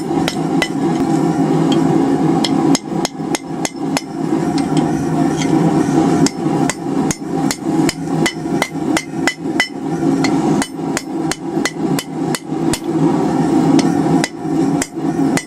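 Hand hammer striking hot steel bar stock on the anvil horn, bending one side of a forged heart: repeated ringing blows, a few a second in an uneven rhythm, over a steady low roar.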